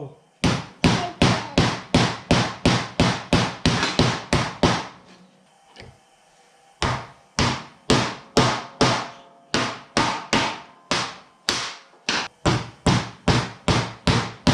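A hammer driving nails: quick, repeated strikes at about three a second. The strikes pause for about two seconds near the middle, then start again.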